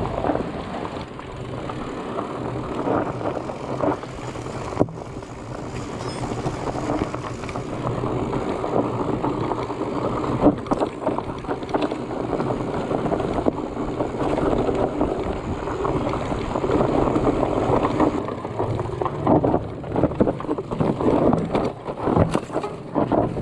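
Fat bike rolling fast down a dirt forest trail: tyre noise on the ground, wind noise on the camera microphone, and short rattles and knocks as the bike goes over bumps.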